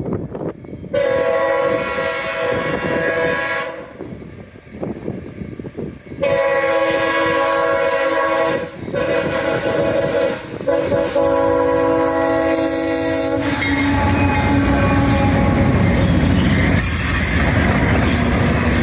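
CSX diesel locomotive's air horn sounding two long blasts, a shorter one and a long one, the grade-crossing signal, as the train comes out of the tunnel. About two-thirds of the way in the locomotive and cars pass close by, a loud steady rumble of engine and wheels on rail.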